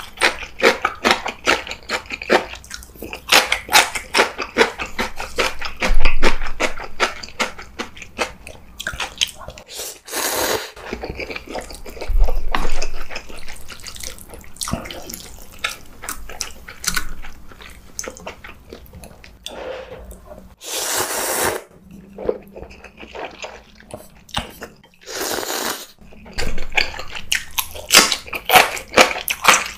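Close-miked mukbang eating: constant rapid chewing and biting of instant ramen noodles and a spicy seasoned green-vegetable side dish, with three long hissing noodle slurps about a third of the way in, about two-thirds in, and shortly after.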